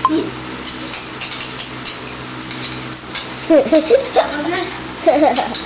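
Forks and spoons clicking and scraping on plastic plates as several people eat noodles, with a few brief voices about three and a half seconds in and again near the end.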